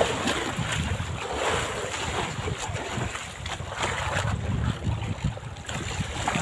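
Strong wind buffeting the microphone, with waves sloshing against a small fishing boat: an uneven rushing noise over a low rumble, with now and then a short knock.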